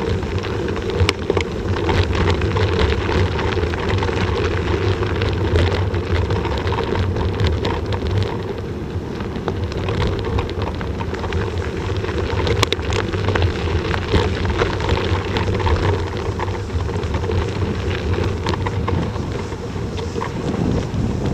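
Bicycle ridden fast over snowy forest trails: a constant rush of wind on the microphone and tyre noise, with frequent small clicks and rattles from the bike over the bumps.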